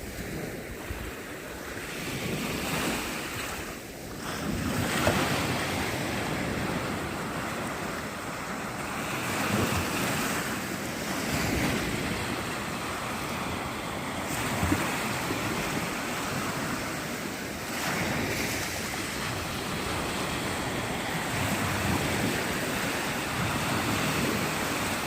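Black Sea surf washing onto the shore, swelling and easing every few seconds, with wind buffeting the microphone.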